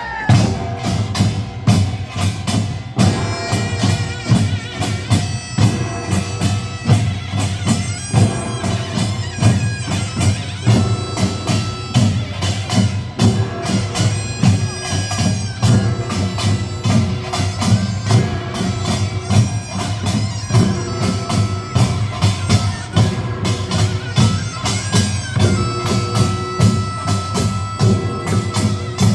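Gyeongsang-do nongak, Korean farmers' band music: a taepyeongso shawm plays a sustained reedy melody over fast, dense beating of gongs and drums. The band starts in abruptly at the outset.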